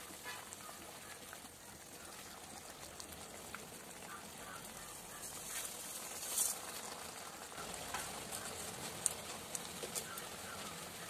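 Vegetable broth simmering in an aluminium kadai while a wooden spatula stirs and taps the pan. About six seconds in there is a brief louder rush as roasted vermicelli is poured into the liquid, followed by a few sharper taps as it is mixed in.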